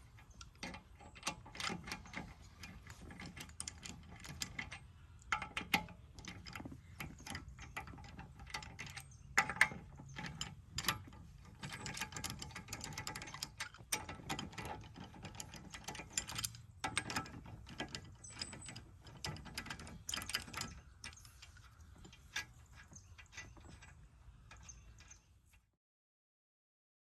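Ratchet wrench clicking and clanking as a car's lug nuts are worked loose to take the wheel off. The sound cuts off abruptly about a second and a half before the end.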